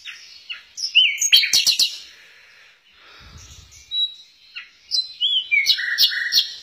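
Small songbird held in the hand singing: a burst of rapid chirps and whistled notes about a second in, then a second burst of whistles and buzzy chirps from about four seconds.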